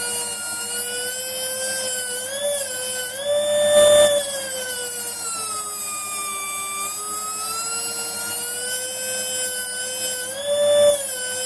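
Pencil die grinder spinning at high speed with a steady high whine as it grinds at hard steel. Its pitch rises twice when it is eased off and sags for a few seconds under load, and it cuts off abruptly at the end.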